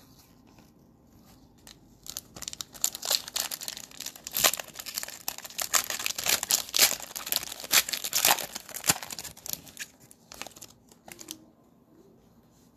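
Cellophane wrapper of a Mosaic basketball cello pack of trading cards being torn open and crinkled. A dense run of crinkling starts about two seconds in and lasts about eight seconds, then a few light crackles and it stops.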